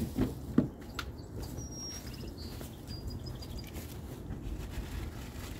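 Outdoor ambience: a steady low rumble, a few short knocks and rustles in the first second, and a couple of brief, high bird chirps about two and three seconds in.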